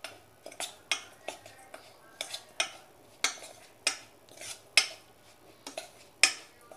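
Metal spoon stirring a dry sattu mixture in a stainless steel bowl, clinking and scraping against the bowl in irregular strokes, about two a second.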